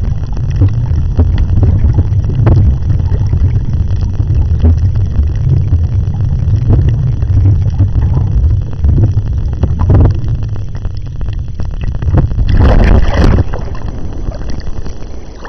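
Muffled low rumble and sloshing of water around a camera held underwater while snorkeling. About twelve seconds in there is a short, hissy splash as the camera breaks the surface.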